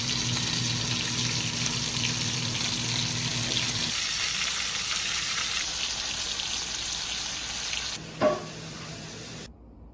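A steady hiss like running water or frying, with a low hum under it for the first four seconds and a brief sharp sound about eight seconds in; it cuts off shortly before the end.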